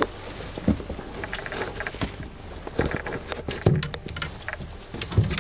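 Irregular thumps and rustling as a freshly landed sturgeon is moved about in a landing net on a boat's floor.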